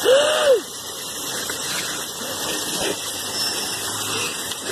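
Floodwater gushing in a steady rush as it drains away. Right at the start, a short squeal rises and falls in pitch and is the loudest sound.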